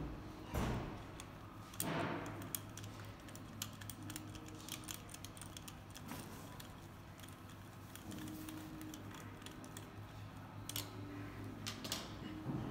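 Ratchet wrench clicking in short runs with light metallic clinks as a fitting is turned in a diesel engine's cylinder head, with a couple of heavier knocks near the start.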